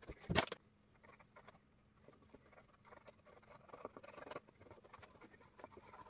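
Wooden stick stirring and scraping wet quick-setting concrete in a small bowl, a run of faint, irregular scratches. A brief louder rustle and scrape comes at the very start.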